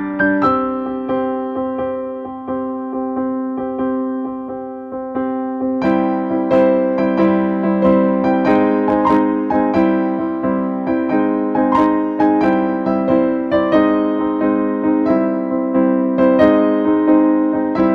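Background piano music on an electric piano: sustained chords that give way, about six seconds in, to a busier run of repeated notes.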